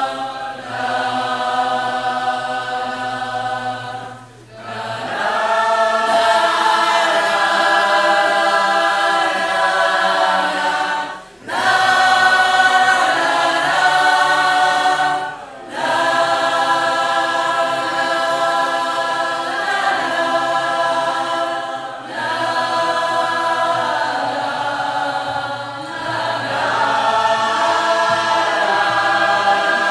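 Choir singing held chords in long phrases, with short breaks between phrases about four, eleven and fifteen seconds in.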